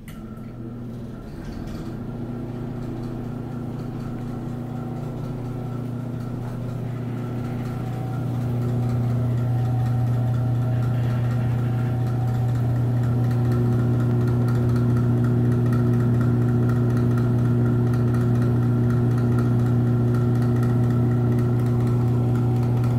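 Penn Zephyr mid-blower ceiling exhaust fan running with a steady motor hum and a loud rattle. It grows louder over the first eight seconds or so, then holds steady.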